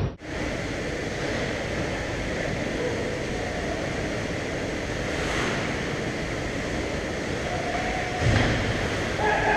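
Steady ice-rink arena noise, an even hiss without clear voices, with a dull thump about eight seconds in.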